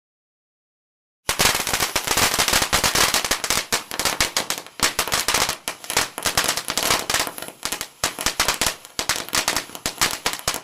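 A rapid string of firecrackers going off in dense, irregular cracks and bangs. It starts suddenly about a second in and cuts off abruptly at the end.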